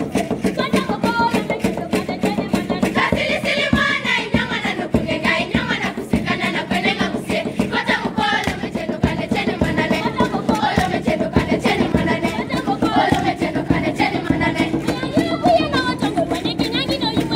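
Girls' choir singing a Kamba folk song for welcoming a newly wedded bride, in group voices, over a steady, fast drumbeat.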